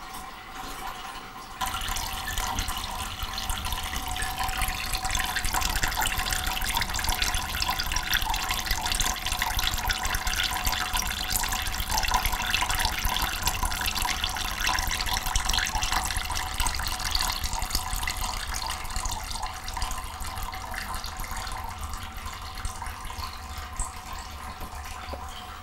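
Tap water running in a steady stream into a sink, splashing onto a frying pan full of water. It starts about a second and a half in.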